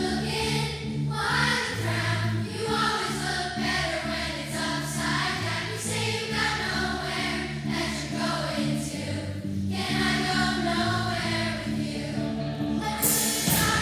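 A large group of children singing together in unison over a student band of ukuleles, guitars, keyboard and drums, in an upbeat indie rock song, with a crash near the end.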